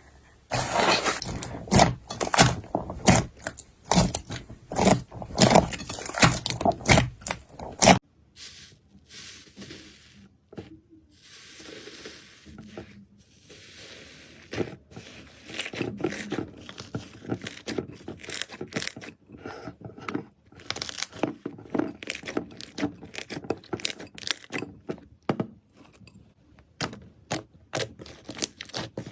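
Slime being squeezed and pressed by hand, with rapid crackling and popping clicks. About eight seconds in it changes suddenly to a quieter, sparser crackle, which grows denser again toward the end.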